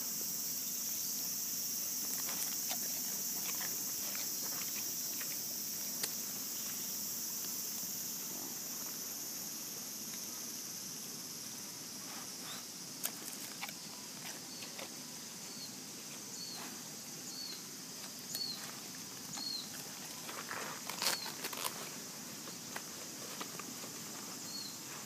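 Sika deer eating a cracker from a hand, with scattered crunching clicks that are loudest about three quarters of the way through, over a steady high insect drone that fades after about ten seconds. A short high chirp repeats about once a second for a few seconds midway.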